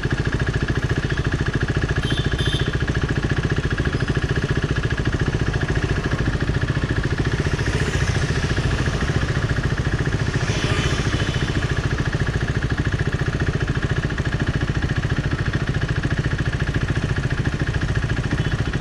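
Motorcycle engine idling steadily at a standstill, picked up close by a helmet-mounted microphone.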